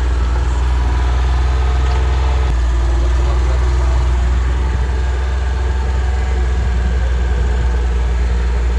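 A vehicle engine running steadily at idle with a low hum, its note shifting slightly about two and a half seconds in, under a steady hiss.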